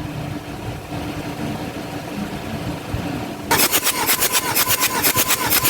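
A 4D56 diesel engine being turned over on its starter motor, beginning about three and a half seconds in, with rapid, even compression pulses (about seven a second) over a steady starter whine. It is being cranked for a compression test, with the engine not starting.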